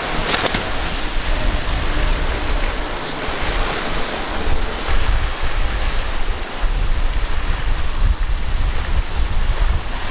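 Rushing of surf and a fast boat's wake spray, with gusty wind buffeting the microphone in an uneven low rumble.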